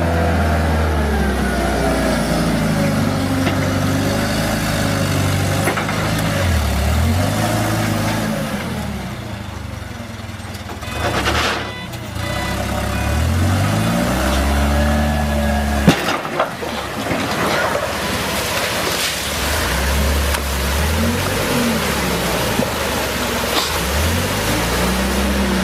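Toyota forklift's engine running, its pitch rising and falling over and over as it is revved and eased off while manoeuvring. There is a sharp knock about sixteen seconds in.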